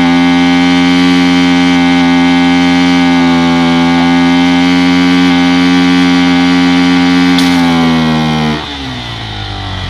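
Honda XR 250 Tornado single-cylinder four-stroke motorcycle engine held at steady high revs, then the throttle is released about eight and a half seconds in and the revs fall away.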